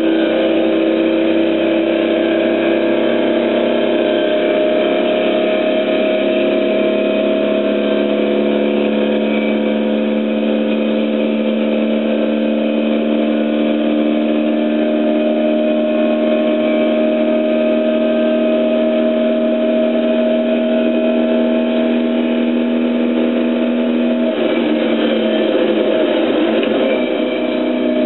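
Hill-climb car's engine heard from inside the cabin, pulling hard at high revs with a steady, slowly rising note; near the end the note breaks and turns rougher, as the car comes off the throttle and changes gear.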